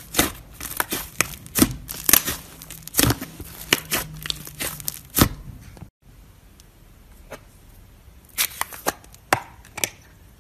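Thick pale blue slime being squeezed and kneaded by hand, making rapid sharp pops and crackles. After a sudden cut about six seconds in, a few separate clicks and taps follow as a plastic jar of clear pink slime is handled.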